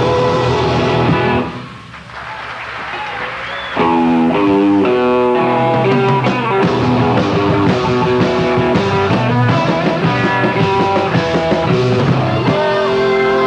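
Live rock band playing: the music falls away for about two seconds near the start, then the full band comes back in with quick runs of notes over a steady bass line.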